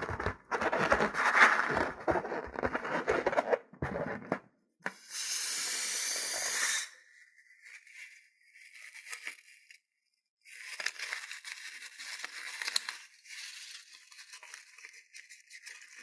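Rubber balloon rubbed and squeezed in the hand, crackling and squeaking, then air hissing steadily out of it for about two seconds as it deflates. Later come stretches of crackling and rustling as small beads are pushed out of the limp balloon onto the slime.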